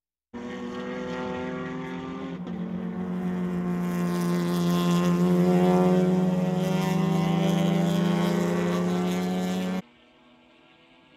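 GT race car engines running hard, a loud multi-toned engine note that swells louder over several seconds. The sound changes abruptly about two and a half seconds in, then drops off sharply near the end to a quieter engine sound from a different shot.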